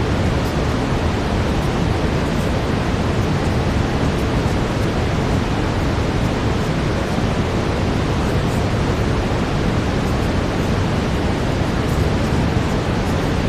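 Steady brown noise: a constant, even rushing hiss weighted toward the low end, unchanging throughout.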